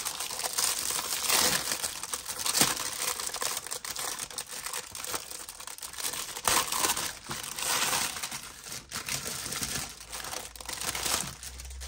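Clear plastic wrapping crinkling and tearing as hands pull it open and peel it off a magazine. There are louder rustles about two and a half seconds in and again around six to eight seconds in.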